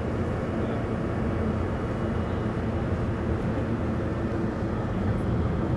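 Steady low rumble and hum of a car ferry's engines running while the ship lies at the berth.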